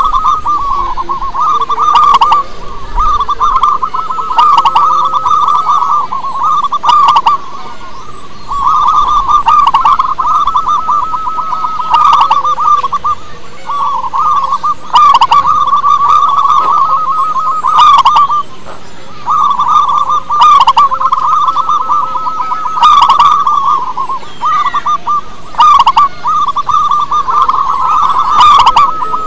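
Zebra dove cooing: a continuous run of rapid, stuttering phrases, each a second or two long, repeated with short breaks between them.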